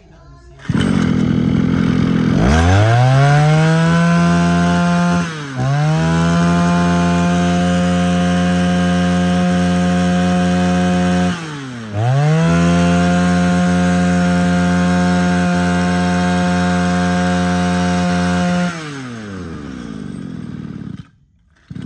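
Mitsubishi TL231 23cc two-stroke brush cutter engine starting about a second in and idling, then revved up to a high steady speed. It drops off and picks up again twice, falls back to idle and cuts off near the end.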